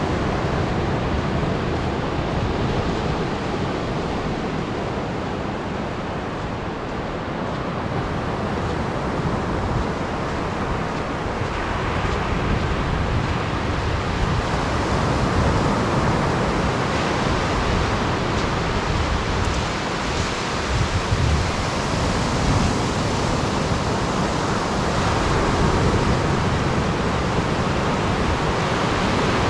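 Atlantic surf breaking and washing up on a sandy beach, a steady rush that swells and eases, with wind buffeting the microphone.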